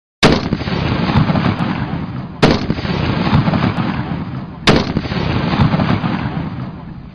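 Barrett M107 .50-calibre sniper rifle firing three shots about two and a quarter seconds apart, each followed by a long echo that dies away before the next shot.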